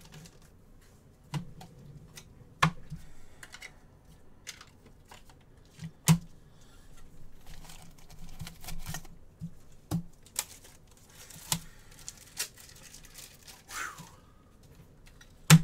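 Trading cards and their packaging being handled at a desk: scattered sharp clicks and taps amid soft rustling and crinkling.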